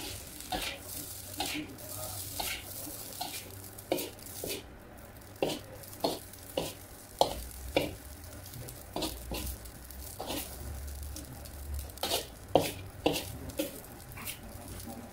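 Metal spatula scraping and knocking against a wok as rice is stir-fried, in irregular strokes one or two a second, over a faint sizzle.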